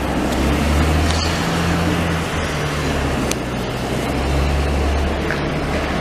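Diesel engine of a wheel loader with a snowblower attachment running in the street, a steady low drone whose pitch shifts a little as the load changes, under a broad rushing noise.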